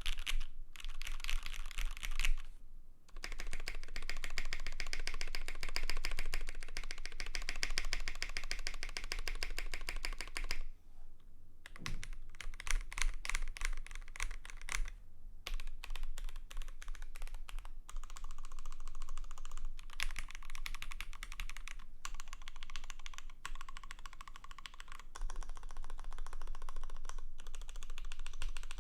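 Fast, continuous typing on a custom KBD75 v3.1 mechanical keyboard with lubed and filmed Gateron X switches, a polycarbonate plate, greased Durock stabilisers and JTK Zen keycaps. The typing breaks off briefly about 3 s, 11 s and 15 s in.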